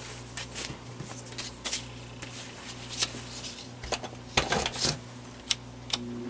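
Scattered light plastic clicks and taps from handling a personal fan being readied for a test run, over a steady low hum. Near the end the fan's replacement shaded-pole motor starts and its hum begins to rise.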